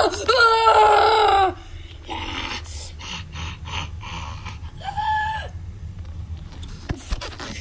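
A child's high-pitched, strained scream with wavering pitch, lasting about a second and a half. Softer scuffling noises follow, then a shorter held cry about five seconds in.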